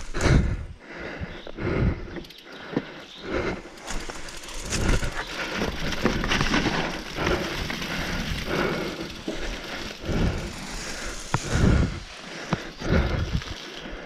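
Mountain bike rolling down a dirt singletrack covered in dry leaves: tyres crunching through leaves and over roots, with irregular knocks and thuds from the bike.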